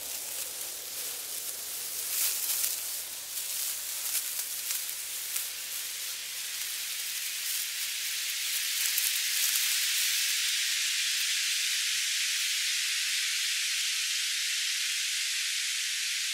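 Designed sound of a snake's body sliding over sand and gravel: a grainy, crackling hiss. About ten seconds in, the crackle gives way to a smoother, steady hiss.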